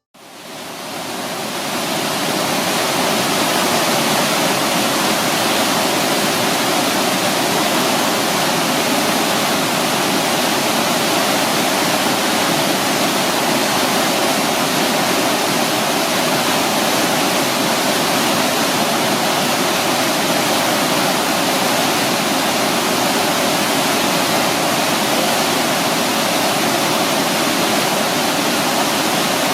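The Zambezi River pouring over Victoria Falls: a steady, loud rush of falling water that fades in over the first couple of seconds and then holds unchanged.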